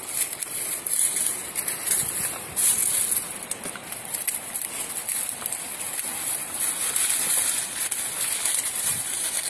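Dry peony stems being cut off at ground level, with several short snips and the crackling rustle of dry stalks and leaves as they are handled. A steady high hiss runs underneath.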